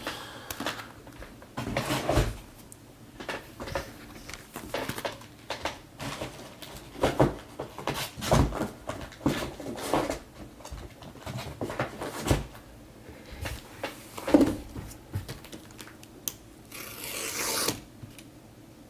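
Hands handling trading card packs and boxes on a tabletop: scattered knocks and taps, with a brief crinkly rustle of pack wrapper near the end.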